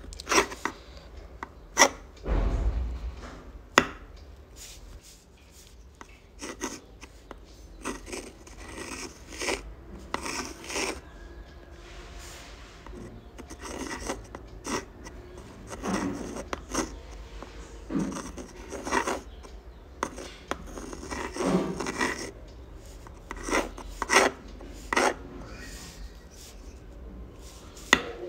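Uni-ball fine-tip pen scratching across textured sketch paper in quick, irregular strokes of handwriting, with a few sharp ticks about two and four seconds in.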